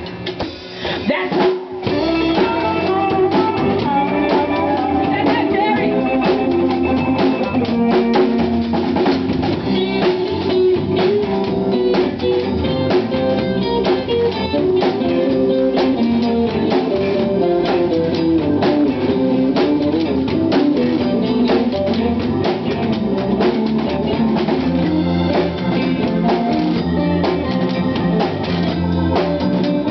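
A live band playing: drum kit, electric guitar and bass guitar, with a washboard being scraped for rhythm. The music thins out briefly at first, then the full band comes in about two seconds in and plays on steadily.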